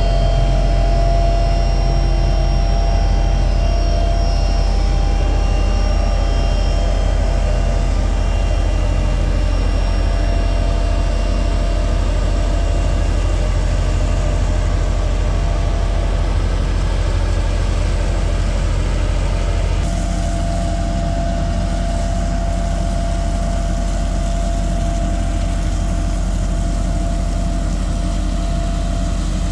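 Diesel engine of a Hamm 3410 single-drum road roller running steadily close by: a loud low drone with thin steady whines over it in the first half. From about twenty seconds in, a hiss of water spraying from a hose joins it.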